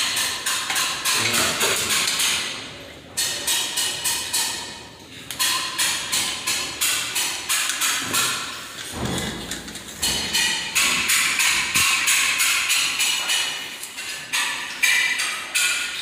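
Background music with a fast, even percussive beat of about five sharp hits a second.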